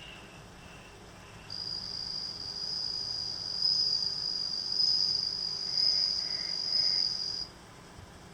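Male bell cricket (suzumushi) singing: one long, ringing, high trill lasting about six seconds, starting about a second and a half in, its level swelling and easing as it goes. A few short, fainter calls come before it.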